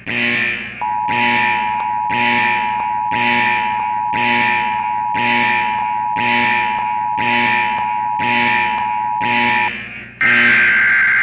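Electronic danger alarm: harsh buzzing blasts repeat about once a second, each fading quickly, over a steady high continuous tone. The tone stops near the end, when a louder, longer blast begins.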